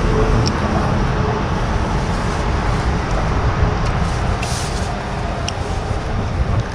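Steady road-traffic noise, a continuous rumble with a few faint ticks scattered through it.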